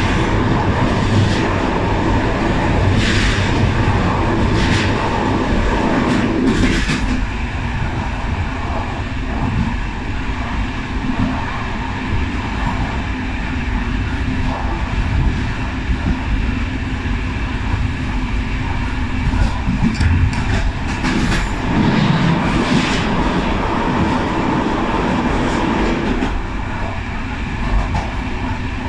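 Passenger coach running along the track, heard from the rear coach: a steady wheel-on-rail rumble with clicks as the wheels cross rail joints. The rumble is fuller for the first several seconds while the coach is on a steel truss bridge, then eases, with a run of sharper clicks about twenty seconds in.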